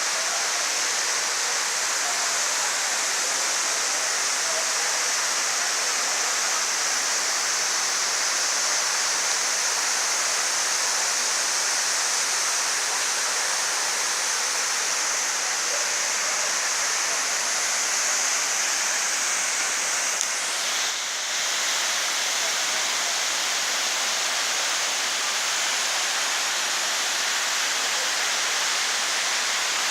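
Waterfall rushing steadily, a constant hiss of falling water, with a brief dip in level about two-thirds of the way through.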